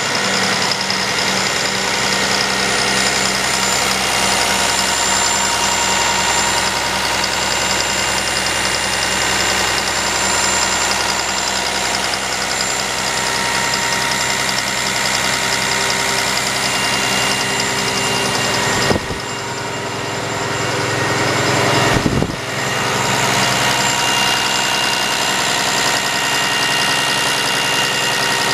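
Volvo D6H diesel engine of a wheel loader idling steadily. About two-thirds of the way through, the sound briefly drops and then climbs back before settling.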